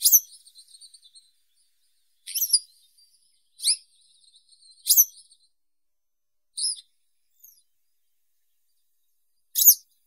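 Western yellow wagtail calling: short, sharp, high notes, about seven of them at uneven gaps of one to two seconds.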